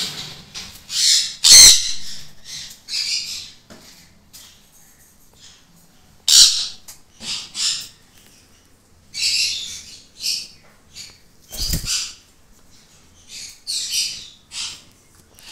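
Sun conures giving short, harsh squawks again and again at irregular intervals. Two sharp knocks cut through, the loudest about a second and a half in and another about twelve seconds in.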